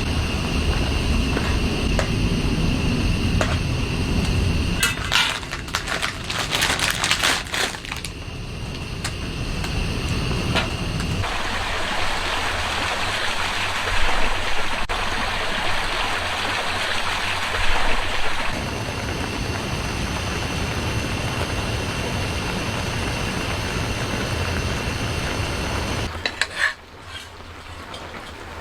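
Steady rushing noise that changes abruptly several times, with a run of sharp clicks and knocks about five to eight seconds in.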